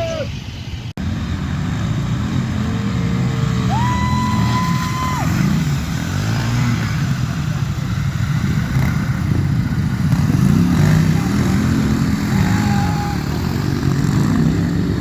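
Harley-Davidson Pan America 1250's 60-degree V-twin engine running under load, its pitch rising and falling again and again as the throttle is worked. There is a sudden brief break about a second in.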